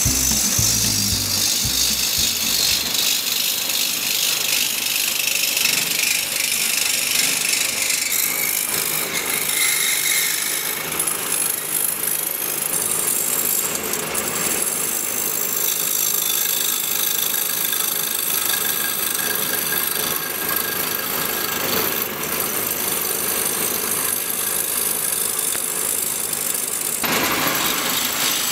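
Wood lathe turning a wooden plate blank, with a hand-held gouge cutting into the spinning wood: a steady, loud hiss of the cut. Its tone shifts about 8 seconds in and again shortly before the end.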